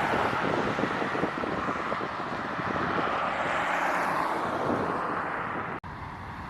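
Road traffic passing on a highway, a steady rush of tyres and engines, with wind buffeting the microphone. It drops away abruptly near the end and is quieter after.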